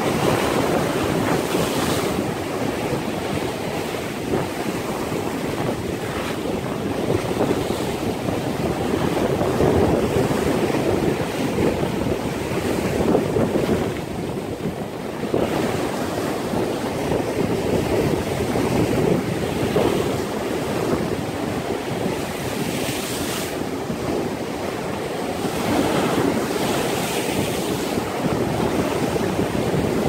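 Heavy surf breaking and washing over shore rocks in repeated surges, with strong wind buffeting the microphone.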